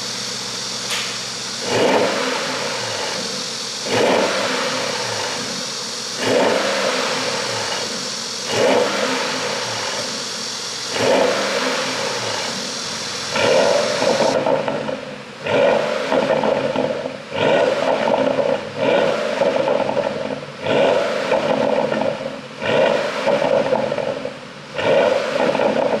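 2020 Porsche Panamera GTS's twin-turbo V8 idling and being blipped about a dozen times, a short rev every two seconds or so and quicker in the second half. Pops crackle from the exhaust as each rev falls back, from a pop-and-bang ECU tune.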